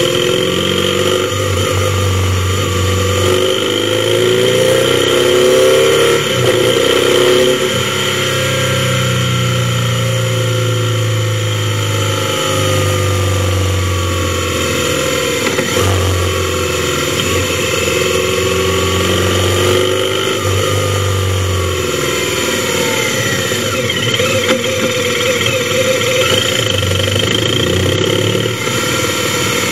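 Motorcycle engine running on the move, its pitch climbing as it pulls and dropping back at gear changes several times.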